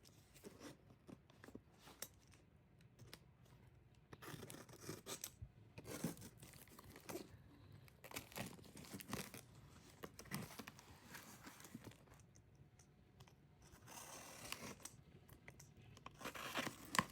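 Packaging being torn open and handled by hand: faint tearing and rustling, with scattered small clicks and scrapes.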